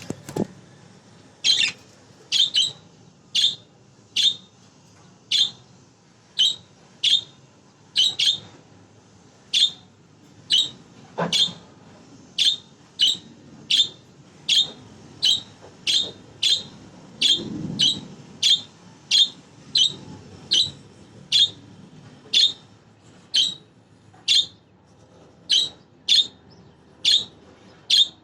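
Pet budgerigar giving short, sharp chirping calls over and over, about one or two a second, with a couple of faint knocks in between.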